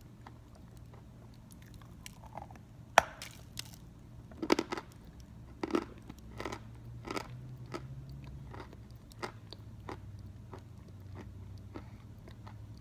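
A chunk of Belgorod edible chalk bitten off with one sharp crack about three seconds in, then chewed in a run of crisp crunches, fainter after about seven seconds.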